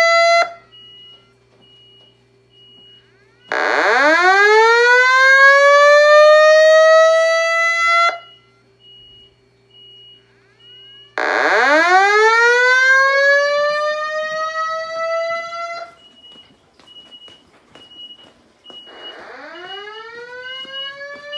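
Simplex 2120 fire alarm voice-evacuation speakers sounding a slow siren-like evacuation tone: each tone climbs in pitch for about four and a half seconds and then cuts off sharply, with about three seconds between. Three sweeps are heard, the last one quieter.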